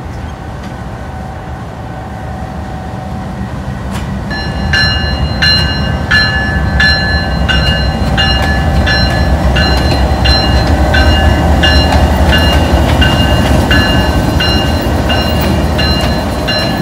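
GEU-20 (GE U20C) diesel-electric locomotive passing slowly, its engine rumble growing louder as it comes closer. From about four seconds in, its wheels add a rhythmic metallic clacking with a ringing squeal, about one and a half strikes a second.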